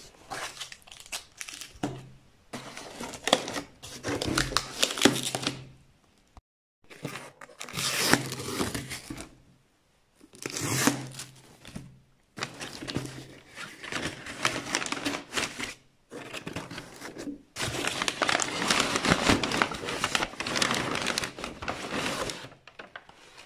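Crumpled packing paper in a cardboard box rustling and crinkling as it is lifted and pushed aside by hand, in several bouts with short pauses between them.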